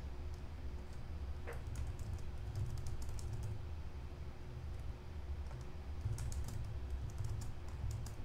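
Computer keyboard being typed on, keystrokes clicking in short runs with pauses between, over a faint steady low hum.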